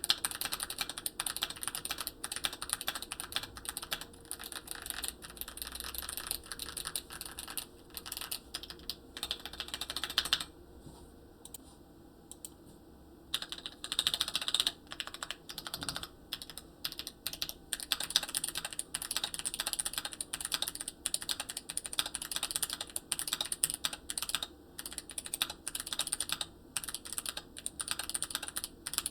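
Fast typing on a Hall effect mechanical keyboard with a steel plate and aluminium case: a dense, continuous stream of key clacks. The typing stops for about three seconds around ten seconds in, then resumes.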